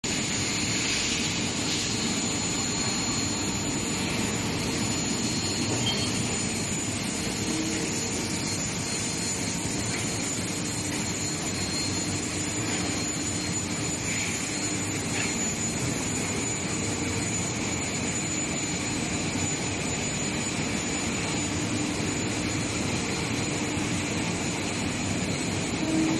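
Long-bar induction hardening and tempering furnace running: a steady machinery noise with thin, high-pitched whines held at a constant pitch.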